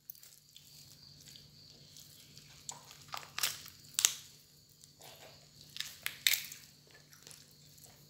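Boiled chicken being torn apart by hand to shred the meat: irregular short tearing and crackling sounds, the loudest about halfway through and again near three quarters of the way, over a faint steady hum.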